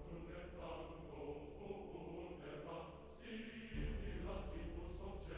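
Background music of slow chanted voices over a sustained drone; a deeper low note comes in near the end.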